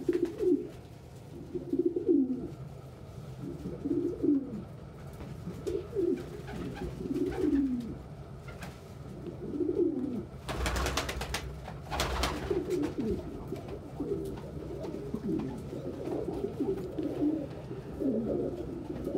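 Domestic pigeons cooing, repeated rolling coos that rise and fall, typical of a cock pigeon's strutting display. About halfway through come two loud, short rustling bursts.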